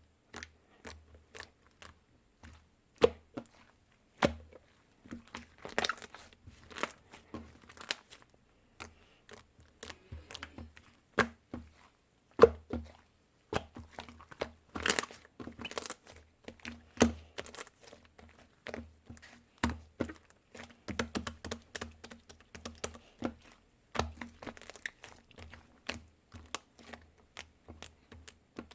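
Irregular crinkling, crunching and clicking, a dense run of sharp little noises with occasional soft low thumps, as from something being handled close to the microphone.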